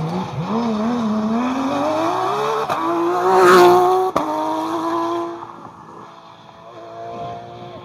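Porsche 911 rally car's flat-six engine under hard acceleration as it passes, its note wavering and then climbing. It is loudest about halfway through, gives a single sharp crack just after, and fades quickly as the car pulls away.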